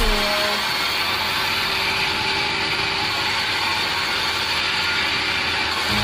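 Sawmill band saw ripping a small log lengthwise, running with a steady, even noise.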